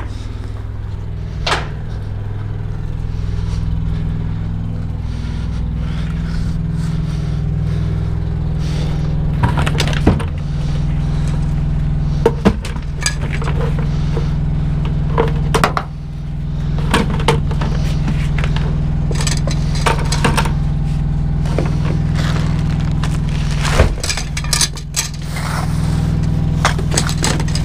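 Diesel truck engine idling steadily, with scattered clanks, clicks and rattles of metal ratchet-strap buckles and gear being handled and stowed.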